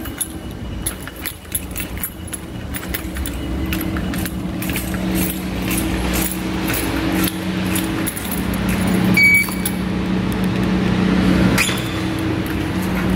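Car keys jangling and clinking with movement, many small metallic clicks, over a steady low hum. A short high beep sounds about nine seconds in.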